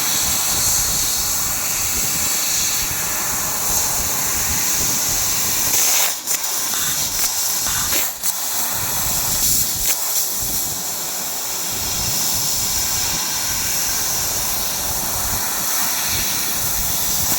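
CNC laser cutting machine cutting mild steel sheet: a steady loud hiss from the cut. Two brief breaks come about six and eight seconds in.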